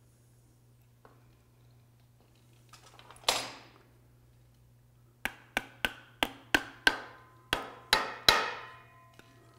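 Ball-peen hammer tapping the top plate of a ball-and-trunnion universal joint down over its gasket. One strike comes about three seconds in, then a quick run of about nine ringing taps near the end.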